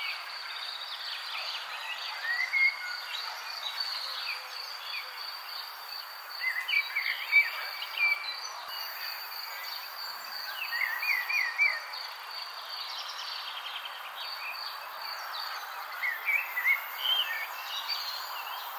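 Nature ambience: an insect trilling steadily, with birds chirping in short rising and falling phrases now and then over a soft hiss.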